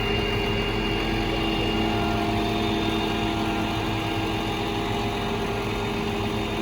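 A vehicle engine idling steadily with an even hum, most likely the tow truck's engine.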